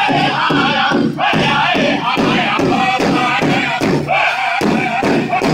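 Powwow drum group singing in high, strong voices over a big drum struck in a steady beat of about three to four strokes a second; the song closes right at the end.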